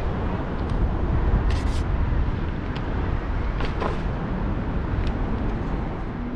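Steady rumble of wind buffeting the microphone of a GoPro 8 on a moving bicycle, mixed with tyre noise on pavement. A handful of short clicks and rattles come through, a pair about a second and a half in and another pair near the middle.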